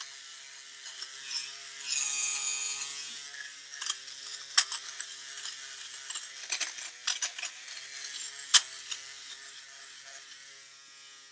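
Handheld electric fabric shaver (bobble remover) running steadily while pressed over a knitted sock, with scattered crackling clicks as its blades snip off the pills. It gets louder for about two seconds a second or so in.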